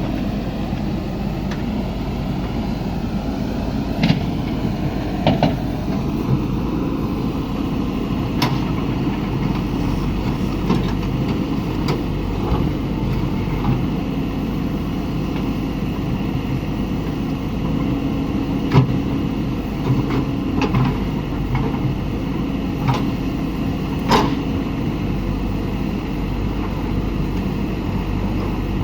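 JCB backhoe loader's diesel engine running steadily while it works, with a few short sharp knocks and clanks from the machine handling gravel.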